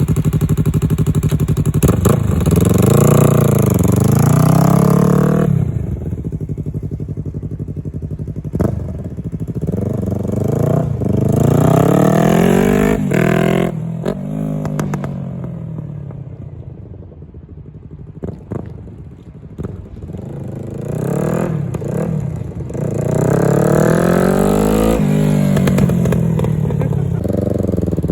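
Yamaha R3's parallel-twin engine revving up and down over and over, each rise in pitch followed by a fall, like a motorcycle pulling through the gears. Short clicks sound in between.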